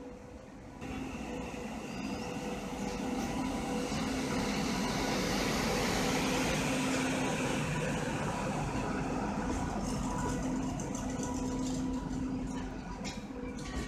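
WAP-7 electric locomotive passing close by: the steady hum of its blowers over the rumble and rush of its wheels on the rail. The sound swells about a second in, is loudest in the middle, and eases off near the end, where sharp clicks of wheels over rail joints come in.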